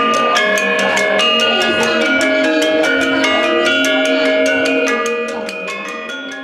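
Balinese gamelan: bronze-keyed gangsa metallophones over bamboo resonators, struck with mallets in a fast, even run of ringing notes. The playing fades away over the last second and a half.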